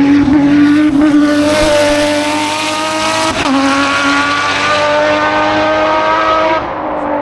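Race car engine running hard at high revs, its pitch creeping up, with a short break about halfway through like a gear change. The sound drops off sharply near the end.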